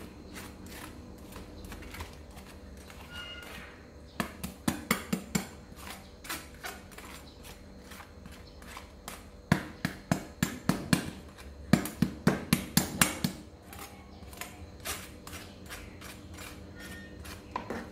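A spatula knocking against a plastic colander and the rim of an aluminium pot, scraping soaked seaweed into the soup. The taps come in three quick runs of about three or four a second, over a steady low hum.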